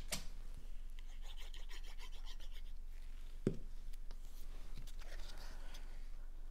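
Cardstock paper pieces rubbing and rustling against each other and against fingers as they are handled and pressed together, with a sharp click at the start and a soft knock about three and a half seconds in.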